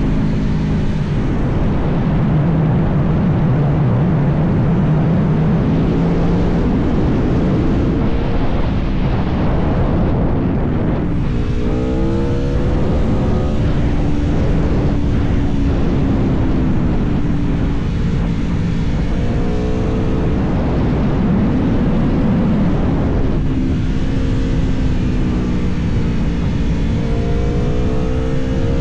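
Aprilia Tuono V4 Factory's V4 engine under way, the revs climbing in sharp pulls as it accelerates, about a third of the way in, again past the middle and near the end, and falling back between, over steady wind and road noise.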